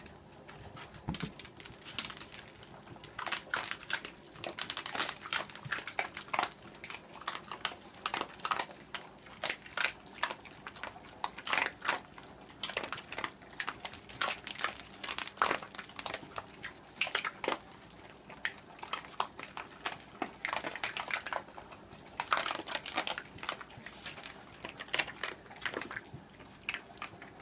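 Small dogs crunching and chomping macaroni: many quick, sharp, irregular crunches in clusters, with short pauses between mouthfuls.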